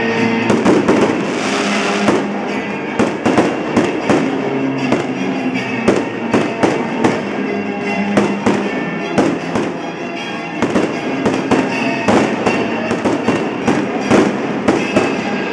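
Fireworks display: a rapid, irregular string of bangs and crackles, several a second, from shells and rising comets bursting. Music plays underneath.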